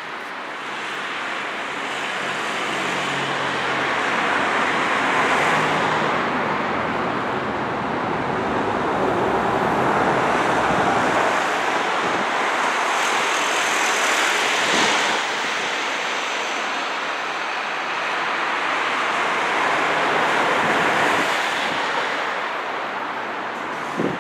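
Road traffic on a busy multi-lane town road: several vehicles pass one after another, their tyre and engine noise swelling and fading in slow waves.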